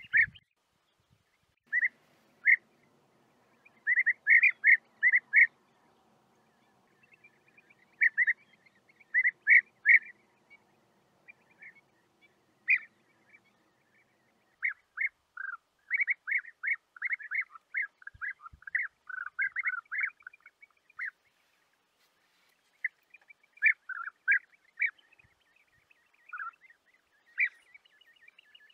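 European bee-eaters calling: short, rolling calls in clusters of several, separated by pauses, with a dense run of overlapping calls in the middle.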